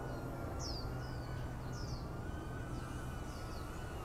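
Birds chirping outdoors in short, quickly falling notes, a few every second, over a thin steady whine that wavers a little in pitch, likely the micro drone's motors flying nearby.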